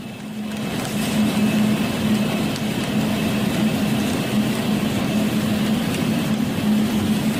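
Steady rushing noise of heavy rain and floodwater, with a steady low engine hum underneath that swells in about a second in.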